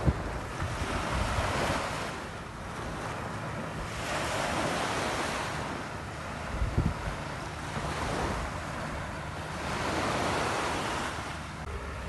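Ocean surf washing onto the shore, swelling and fading in slow surges every few seconds, with wind rumbling on the microphone.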